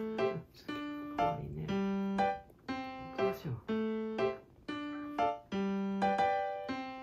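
Background piano music: a slow, gentle melody of held notes, a new note about every half second to second.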